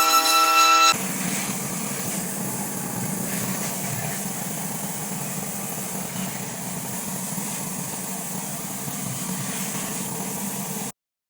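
Pressure washer's engine running steadily, a low hum under a hiss, cutting off abruptly near the end; a moment of music plays before it starts.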